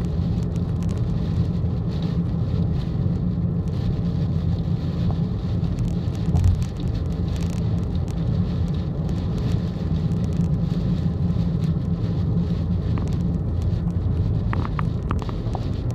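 Steady low drone of a car driving at speed on a rain-soaked expressway, heard from inside the cabin, with heavy typhoon rain hitting the car. A few sharp ticks come near the end.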